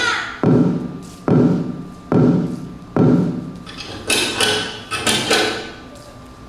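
Dance soundtrack playing a run of heavy percussive hits: four strong booming strikes a little under a second apart, each ringing away, then lighter, quicker hits with a few tones.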